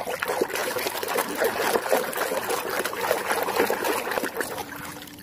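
A hand swishing and scrubbing a plastic toy in a tub of muddy water: continuous irregular splashing and sloshing that starts suddenly and dies away near the end.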